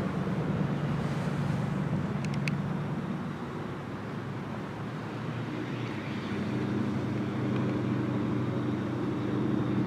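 Federal Signal 2001-SRN rotating outdoor warning siren sounding a steady tone, its loudness dipping a few seconds in and swelling back up as the rotating horn turns.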